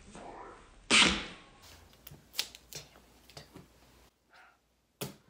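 Craft materials being handled at a table, with plastic straws and a foil-wrapped base: a loud rustle about a second in, then a scattered run of sharp clicks and taps.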